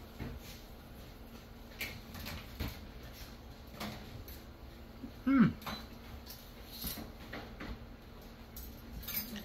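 A person chewing a mouthful of cheddar biscuit, with soft clicks and mouth noises throughout. About five seconds in comes one short hummed "mm" that falls in pitch.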